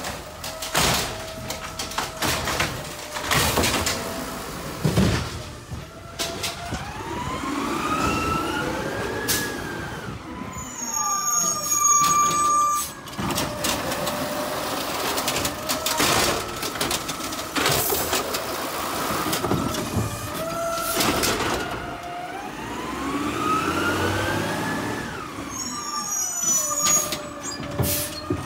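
Automated side-loader garbage truck emptying wheeled trash carts. Twice the engine and hydraulics rev up with a rising, then falling whine as the arm lifts and dumps a cart, amid repeated clanks and bangs of the cart and its lid.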